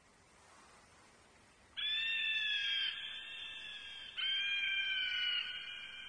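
Harpy eagle calling at the nest: two long, high, drawn-out calls, the first just under two seconds in and the second about four seconds in, each dipping slightly in pitch before it trails off.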